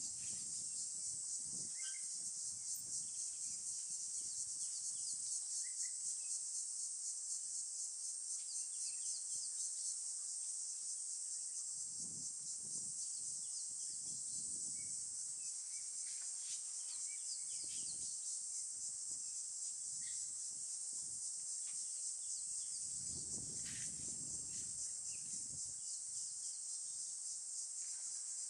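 A dense, steady, high-pitched chorus of insects, with a few faint bird chirps and some soft low rumbles, the longest of them late on.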